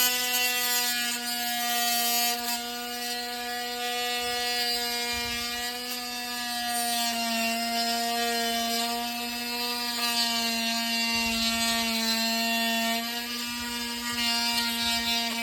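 Oscillating multi-tool running steadily, cutting an EZGO RXV golf cart's factory charging receptacle off flush; its pitch holds with small dips as the blade meets the material.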